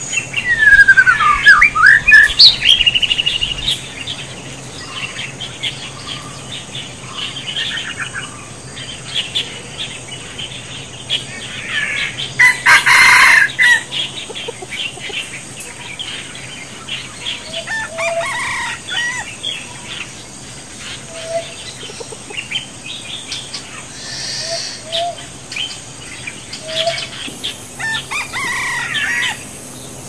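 Birds chirping and calling in the forest, loudest in the first few seconds. A red junglefowl rooster crows once, loudly, about halfway through, with short low notes from it now and then after.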